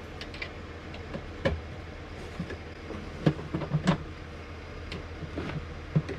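Scattered clicks and knocks of a screw being worked by hand into a wooden seat fitting inside a timber box, a screw that won't go in. A few sharper knocks come about one and a half seconds in and between three and four seconds, over a steady low hum.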